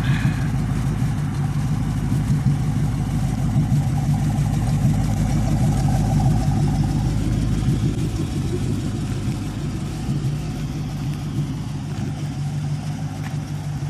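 Engine of a 1988 Lamborghini Countach replica running steadily while being driven. The drone eases off a little in the second half.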